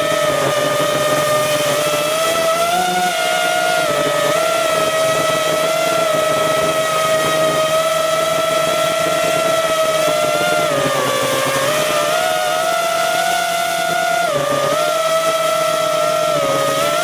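Motors and propellers of a DC5 FPV freestyle quadcopter whining in flight, heard from the camera on board. It is a steady high whine that dips and rises in pitch several times, lowest about eleven seconds in.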